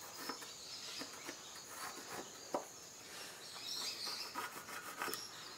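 Faint pencil and steel-ruler taps and scratches while profile lines are marked on a wooden lure blank, with a sharper click about two and a half seconds in. A steady high chirping of insects runs underneath.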